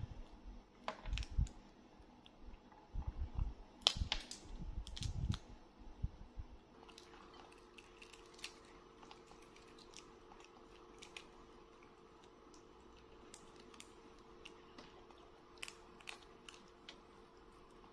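Young macaque cracking peanut shells and chewing peanuts: scattered small clicks and crackles of the shells, with a few dull thumps in the first six seconds. A faint steady hum comes in about seven seconds in.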